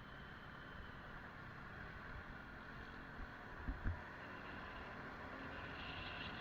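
A motorcycle riding in traffic, heard through a helmet-mounted camera: steady wind rush and engine noise that grows slightly louder, with two short low thumps a little past halfway.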